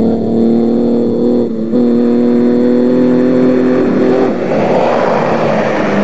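Off-road racing pickup's engine running hard at steady high revs as it approaches, with a short dip about a second and a half in. As it passes close by, about four seconds in, its pitch drops and a loud rush of noise joins it.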